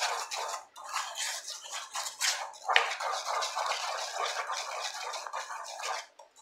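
Wooden spoon stirring and scraping a thick mix of condensed milk, cocoa powder and margarine around a pot, not yet heated. A steady run of scraping strokes, with a sharper knock against the pot about three seconds in.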